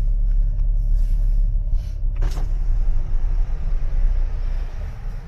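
Car driving slowly through a multi-storey car park, heard from inside the cabin: a steady low rumble of engine and tyres, with a single short thump a little over two seconds in.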